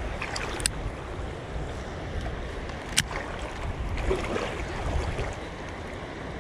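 Wind buffeting the microphone over the steady rush of shallow river water, with two short sharp clicks, one near the start and one about three seconds in.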